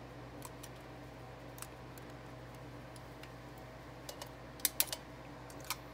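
Small metal clicks and ticks as a choke rod and linkage are worked into a Quadrajet four-barrel carburetor's choke flap, a few faint ones at first and then a quick run of three sharper clicks near the end, over a faint steady hum.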